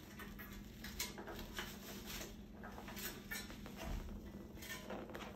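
Faint, scattered small clicks and rustles from movement, over a low room hum.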